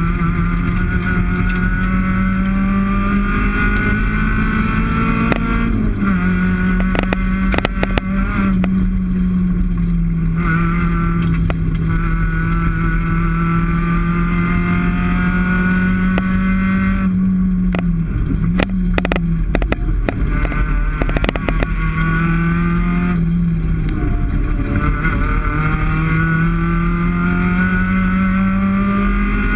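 Rally car's engine heard from inside the cockpit, running hard at high revs. Its pitch dips briefly several times, about six, eighteen and twenty-four seconds in, as the driver lifts or shifts. Scattered sharp clicks and knocks come through the bodywork over the engine.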